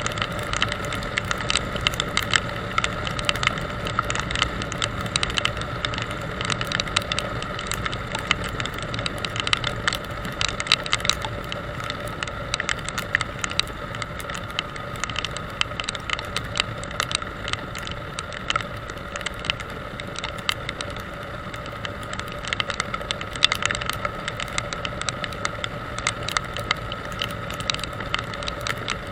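Motorcycle riding at a steady speed: the engine and road noise hold an even drone with a constant whine, overlaid by frequent irregular clicks and rattles.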